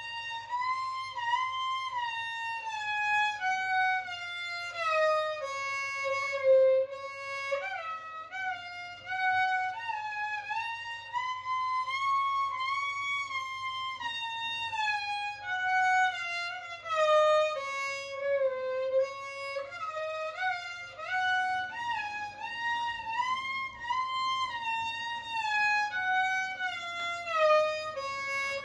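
Solo violin played with the bow: a slow melody in three long arching phrases, each climbing and then sinking to a low held note.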